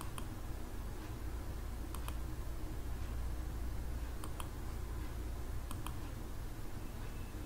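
Computer mouse clicking a handful of times, some clicks in quick pairs, as line points are placed in a CAD sketch. A steady low hum runs underneath.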